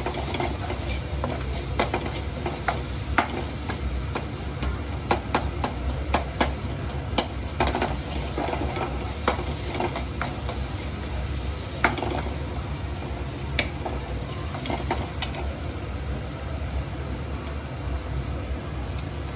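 A utensil stirring and tossing noodles in a pan, clicking and scraping against the metal at irregular moments, busiest through the middle, with food sizzling. A steady low hum runs underneath.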